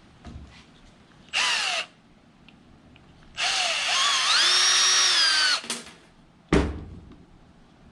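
Power drill run in two trigger pulls: a short spin about a second and a half in, then a longer one from about three and a half seconds whose whine rises, holds steady and winds down. A single sharp knock follows near the end.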